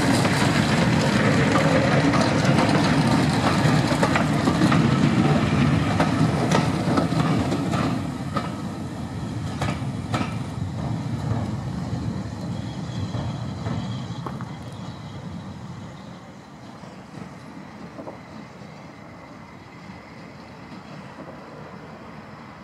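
Steam-hauled passenger train's coaches rolling past at close range, their wheels clicking over the rail joints. It is loud for about the first eight seconds, then dies away as the train draws off.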